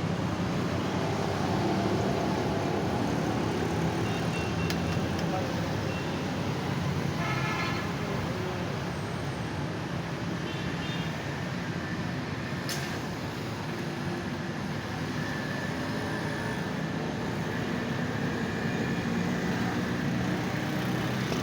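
Steady roadside traffic, with vehicle engines running and passing. A short horn note sounds about seven seconds in.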